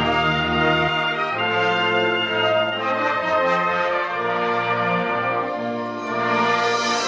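Symphonic concert band playing live with the brass to the fore: held, full chords over a bass line that steps to new notes about a second in and again around three seconds in.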